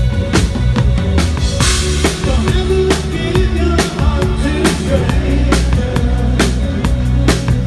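New wave rock band playing live, instrumental: a steady drum-kit beat with kick and snare over sustained bass and keyboard or guitar notes, and a cymbal crash about two seconds in.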